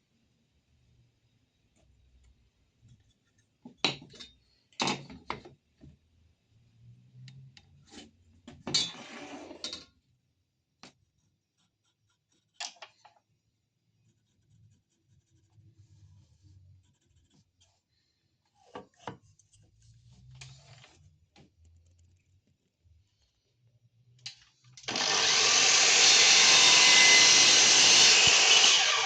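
Workshop handling sounds: scattered knocks and clicks of wood and tools being picked up and set down, with quiet gaps. Near the end a power tool starts abruptly and runs loudly and steadily.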